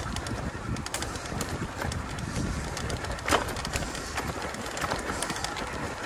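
Rattling and clicking of an electric-assist mountain bike rolling over a rough, rutted forest trail, with one sharp knock just past halfway. A dove cooing in the background.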